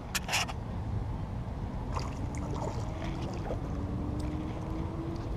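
Steady low outdoor rumble, with a faint droning tone that starts about two seconds in and creeps slightly up in pitch, and a few short clicks at the very start.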